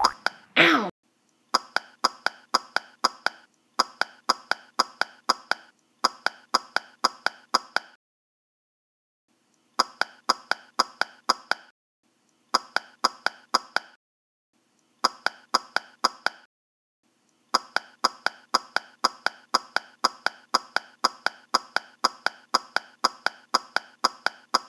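A falling-pitch sound effect ends just under a second in. It is followed by a string of identical short taps, about five a second, in runs of a few seconds broken by short pauses: a looped running-footsteps sound effect for a Lego minifigure.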